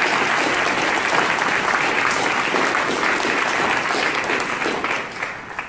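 Audience applauding steadily, the clapping tapering off near the end.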